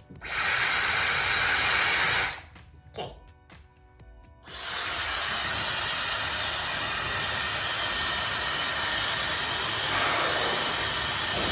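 Dyson Supersonic hair dryer blowing: it is switched on with a brief high tone, runs for about two seconds, and is switched off. About four seconds in it comes on again, with the same short high tone, and runs steadily at a slightly lower level.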